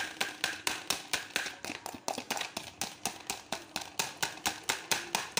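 A metal fork beating chili garlic sauce in a plastic bowl, clicking against the bowl in a steady rhythm of about four to five strokes a second.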